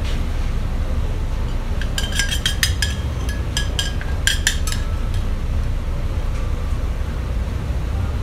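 A metal spoon clinking against a small stainless-steel saucepan of sauce: a quick run of ringing clinks starting about two seconds in and lasting a couple of seconds, over a steady low hum.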